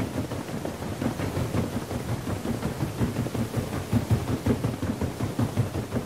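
Paddle steamer's paddle wheels thrashing the water: a dense, uneven churning with many quick pulses, heaviest in the low end.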